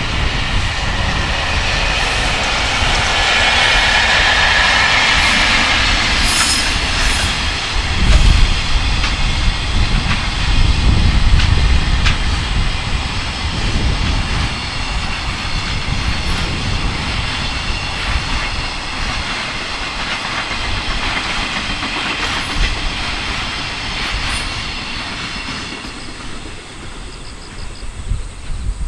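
Electric-locomotive-hauled freight train passing at track side, a long run of wagons rolling over the rails, dying away over the last few seconds. Strong gusty wind buffets the microphone underneath.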